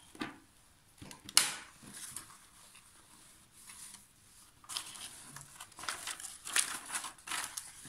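Crinkling and rustling of the protective cover sheet on a diamond painting canvas as it is handled and peeled back. A sharp crackle comes about a second and a half in, then a quieter gap, then repeated rustling from about halfway through.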